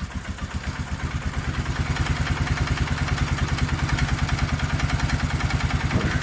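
Polaris ATV engine idling with an even, steady pulse on choke, just after starting on a newly installed aftermarket carburetor.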